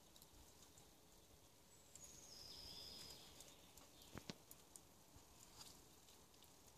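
Near silence: faint forest ambience with a few distant bird whistles about two seconds in, and a couple of small clicks a little past four seconds.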